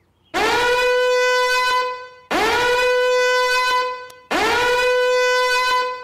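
Countdown timer's end alarm: a loud horn-like tone that swoops up in pitch at the start of each blast, sounding three times, each blast nearly two seconds long with a short gap between.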